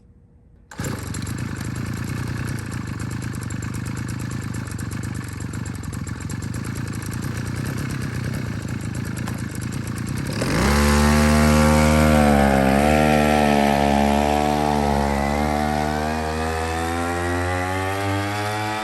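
Small gasoline engine of a homemade motorized scooter running hard under way. It cuts in sharply about a second in as a noisy, rushing run. About ten seconds in the engine's tone comes through clearly and louder, its pitch dipping and climbing again as the throttle changes.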